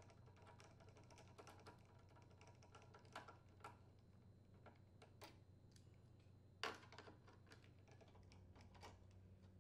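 Faint, irregular clicks and ticks of a Phillips screwdriver turning out the screws of a plastic air filter housing on a Briggs & Stratton lawn mower engine, with one sharper click about two-thirds of the way through.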